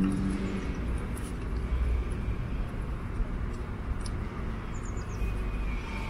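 Steady outdoor city ambience, mostly the low rumble of distant road traffic.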